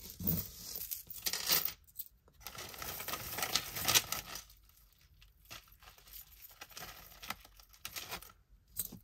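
Hands sorting through a pile of thrifted jewelry: metal pieces clinking and rattling, in two busy stretches over the first half, then lighter, scattered clicks.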